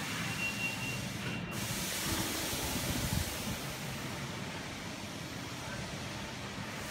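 Steady hiss of background air noise in a large, empty indoor hall, with a faint high steady tone that stops about a second and a half in.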